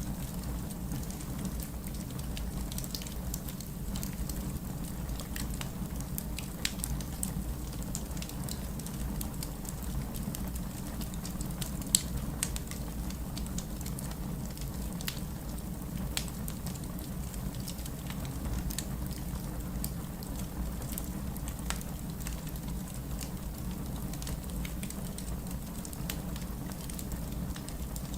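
Crackling fireplace: a steady low rumble of burning wood with scattered sharp pops and snaps, one louder pop about twelve seconds in.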